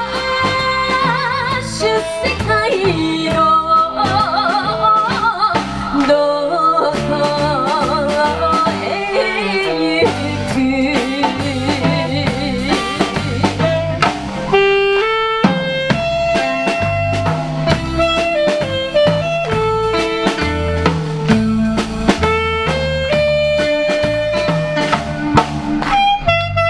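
Live band playing a song: drum kit, electric guitar, bass and saxophones, with a woman singing at the microphone.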